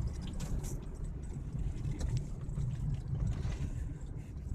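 Car in motion, heard from inside the cabin: a steady low rumble of engine and road noise with scattered light clicks and rattles.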